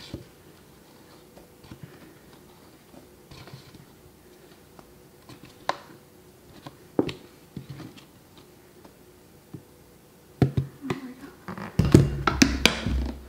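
Whole wheat flour being tipped and spooned from a plastic container into a bowl on a kitchen scale: scattered light taps and scrapes of a wooden spoon against the container. About ten seconds in comes a cluster of louder knocks and thuds as the container and spoon are handled and set down.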